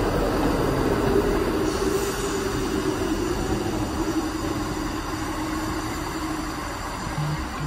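An SNCF Fret locomotive with a Y 8000 diesel shunter coupled behind it rolling slowly past. A steady engine drone over the rumble of wheels on track, with a low hum that drifts slightly lower and slowly fades.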